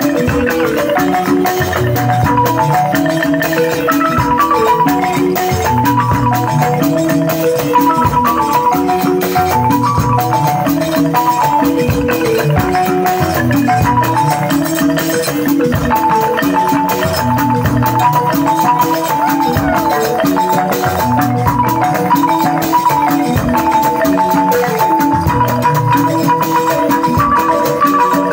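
Balani, the small Malian balafon, playing a fast, running melody of short struck notes over low drum strokes: traditional dance music.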